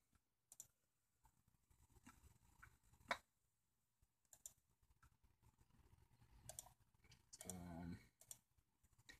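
Near silence broken by scattered faint clicks, one sharper than the rest about three seconds in, and a brief faint voice near the end.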